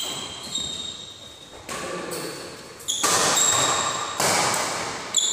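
Badminton rally: rackets striking the shuttlecock about once every second or so, five strokes, each with a sharp crack and a high ringing note that echoes through the large hall.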